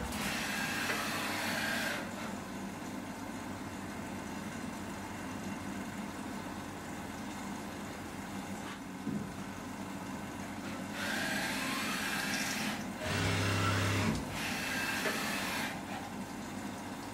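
Syil X7 CNC mill rigid-tapping M4 threads with flood coolant: a steady machine hum, with two louder stretches near the start and from about eleven to sixteen seconds in, where a spindle whine glides up and down. A heavy low hum comes in about thirteen seconds in.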